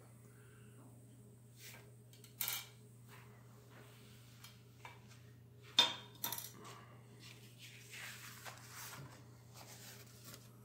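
Faint cutlery sounds: a table knife scraping and tapping on a plate while a canned fried mackerel is filleted. The loudest sound is a sharp clack just past halfway, followed by a few lighter ticks, all over a low steady hum.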